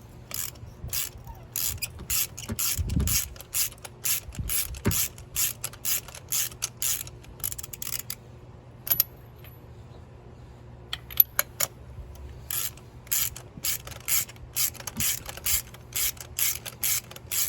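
Ratchet wrench clicking in quick runs of strokes, about two to three clicks a second, as a loosened spark plug is backed out. It stops for a few seconds past the middle, then carries on.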